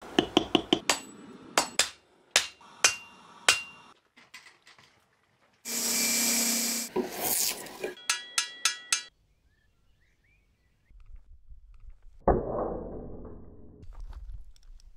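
Hammer blows on steel at an anvil: a quick run of sharp, ringing strikes, then a burst of noisy rushing, then five or six more ringing strikes on the blade. Later a single heavy strike dies away over a couple of seconds, from the bladed flail hitting a test-cutting post.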